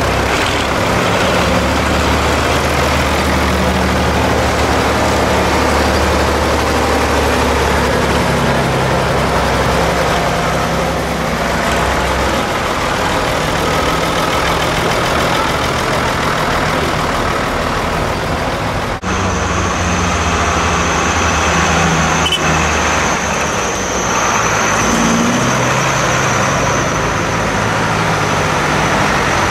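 Diesel engines of Ford farm tractors running at low speed as the tractors drive past one after another. The low steady engine note changes abruptly about two-thirds of the way through.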